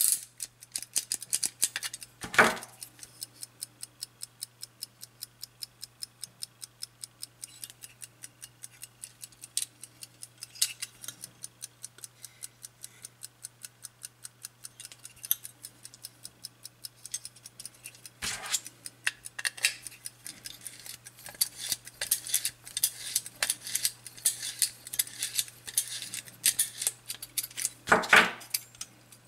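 The platform escapement of a Soviet navy ship's wall-clock movement ticking fast and evenly, about five ticks a second, as its balance wheel runs. A few louder knocks from the bare movement being handled, the loudest near the end.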